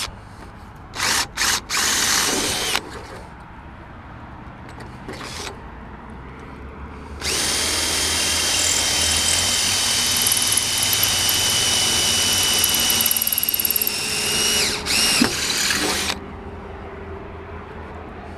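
Cordless drill boring a pilot hole through the bus's metal door: a few short trigger pulls, then a long steady run of the motor whine that briefly dips and then stops.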